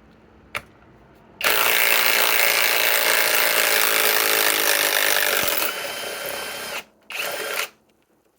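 Kobalt cordless 3/8-inch right-angle impact wrench backing out a lag screw. After a sharp click, it runs loud for about five seconds, drops in level near the end of that run, stops, then gives one short second burst.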